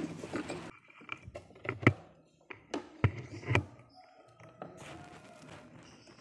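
Handling noise: a string of clicks and knocks, the sharpest about two seconds in, as multimeter test probes, a circuit board and an analog multimeter are moved about inside a wooden speaker cabinet, then softer rustling.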